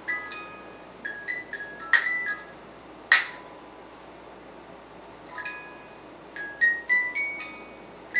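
A small music box playing a tune in short, high plucked notes that ring briefly, with a pause of about two seconds in the middle. A sharp click about three seconds in is the loudest sound.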